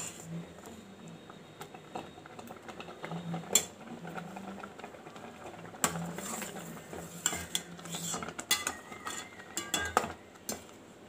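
A steel spoon scraping and clinking against a stainless steel pot while stirring thick, curdled colostrum milk as it cooks down into palkova. The knocks are irregular, with a quick run of them near the end.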